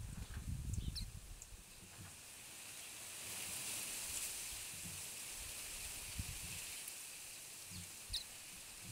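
Outdoor breeze: a hiss of wind through foliage that swells and fades, with low buffeting rumbles on the microphone in the first second. A few short, high bird chirps come, one about a second in and one near the end.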